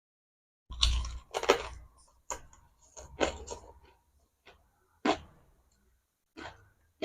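Close-up chewing of crisp, crunchy food: a string of sharp, irregular crunches starting about a second in, the loudest in the first two seconds.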